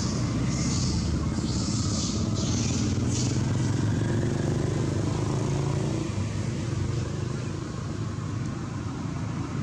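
Steady low hum of a motor vehicle engine running, with several short hissing bursts in the first three seconds; the hum eases off a little about six seconds in.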